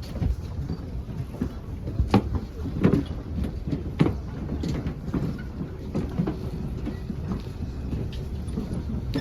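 A steady low mechanical rumble with a series of knocks and thumps, the loudest about two, three and four seconds in.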